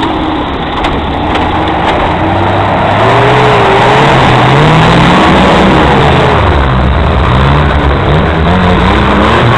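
Off-road vehicle's engine running loud under load, its revs rising and falling again and again from about three seconds in.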